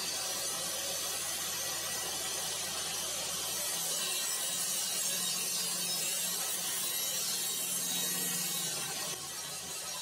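Table saw running steadily, its blade cutting through a plywood panel pushed on a crosscut sled from about four seconds in to about nine seconds: one of the trim cuts of the five-cut test for the sled's squareness.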